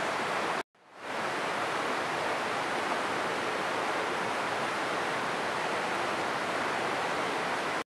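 Steady rush of flowing water, an even hiss-like roar. It drops out for a moment a little under a second in and fades back up.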